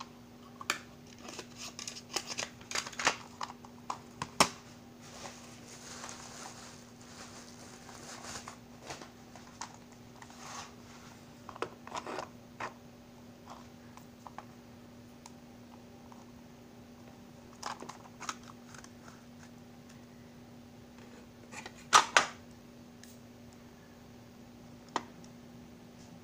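Plastic cassette tapes and their cases handled by hand: scattered clicks and rattles, with rustling through the first several seconds and two loud sharp clicks about 22 seconds in. A faint steady low hum runs underneath.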